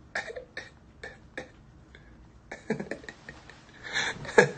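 A man laughing to himself in short breathy bursts, with small mouth clicks, and a couple of louder laughs near the end.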